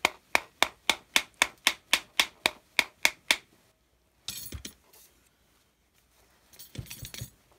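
A quick, even series of about fourteen sharp knocks, roughly four a second, on the barrel of a Nikon 70-200mm f/2.8 lens, knocking loose the lens brace that salt corrosion has seized. Two short scuffs follow, one at about the middle and one near the end.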